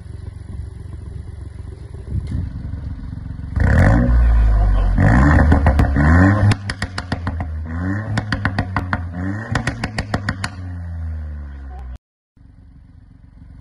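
Mk8 Ford Fiesta ST's 1.5-litre turbo three-cylinder through a Milltek exhaust, revved in Sport mode: it idles, then is blipped hard several times. A quick string of pops and crackles comes out of the exhaust between the later revs, and it settles back to idle.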